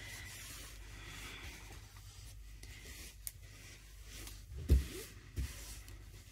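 Faint rubbing and handling of fabric, with a small click about three seconds in and two soft thumps near the end.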